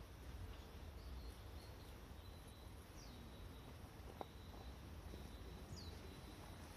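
Faint outdoor ambience with a low rumble. A bird's falling whistled call repeats about every three seconds, each one trailing into a thin held high note. There is a single short click a little after four seconds in.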